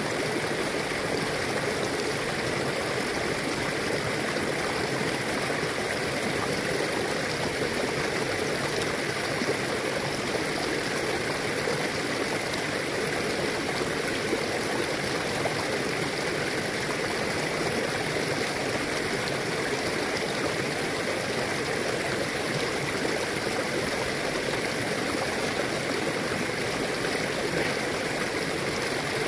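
A shallow river flowing over stones and boulders: a steady, unbroken rush of water.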